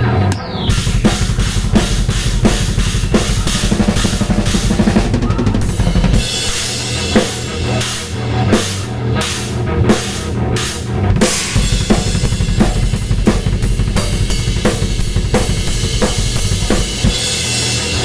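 Metal drumming on a drum kit: fast, steady double bass drum strokes under snare hits and cymbal crashes. About six seconds in the double kick drops out for a few seconds of spaced hits, then the rapid kick pattern resumes.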